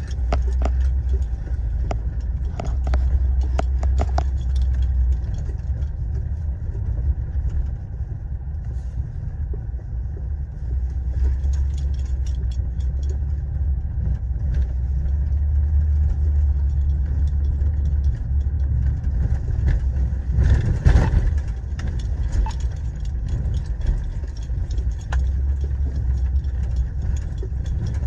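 Cabin noise of a Honda SUV driving on a dirt road: a steady low rumble of tyres and engine, with scattered rattles and clicks from the interior and one louder jolt about twenty seconds in.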